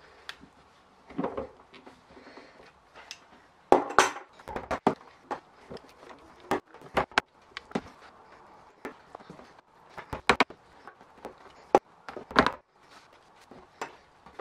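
Hand-lasting a leather sneaker upper over a shoe last with lasting pliers: irregular sharp taps and clicks as the pliers' hammer face and jaws work the tacks, with a few short scrapes and rustles of the leather being pulled.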